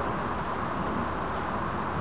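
Steady, even hiss of outdoor background noise with no distinct event.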